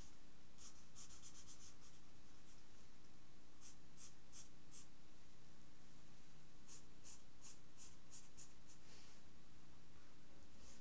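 Pen scratching on paper, drawing quick short strokes in three runs: about seven strokes near the start, four around the middle, and about eight more later on.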